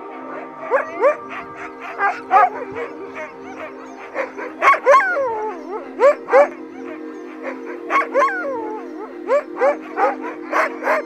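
Several harnessed sled dogs yelping and barking. The calls are short and irregular, many falling in pitch, and some are drawn out into brief howls.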